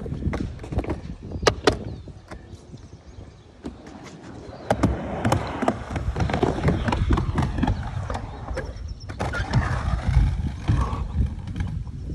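Rapid footsteps thudding and scuffing on the hollow mega-ramp surface as someone runs across it, an irregular patter that starts about a third of the way in. A few sharp clicks near the start.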